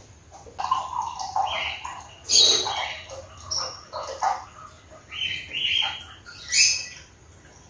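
Birds chirping: short separate calls about once a second, the loudest about two and a half seconds in and again near the end.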